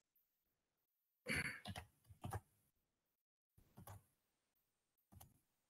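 Mostly near silence, broken by a short breath or sigh about a second and a half in and a few faint clicks from the computer's mouse and keyboard.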